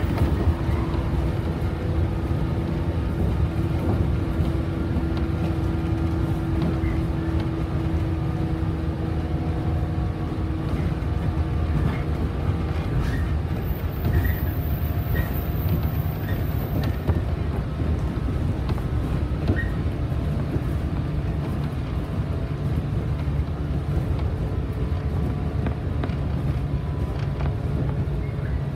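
Interior of a JR 115-series electric train running at speed: a steady rumble of wheels on rail and running gear. A hum over the rumble fades out about ten seconds in, with faint ticks here and there.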